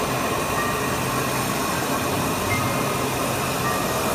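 Gateway Jet GJ5138 print-and-cut machine laser-cutting a sheet: a steady hum and hiss of the machine running.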